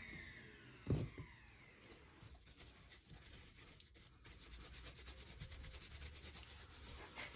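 A motor winds down with a falling whine and stops in the first second, and a knock follows about a second in. Then a paintbrush's bristles scrub faintly over the carved grooves of an oak sign.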